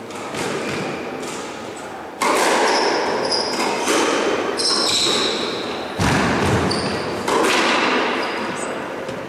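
Squash rally: four sharp hits of the ball off racquets and walls, about one and a half to two seconds apart, each ringing in the enclosed court, with short high squeaks of shoes on the wooden floor between them.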